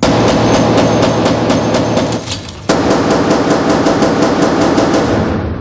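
Rapid pistol fire on an indoor shooting range, about five shots a second, over a loud trailer music bed. The firing breaks off briefly a little after two seconds, then resumes.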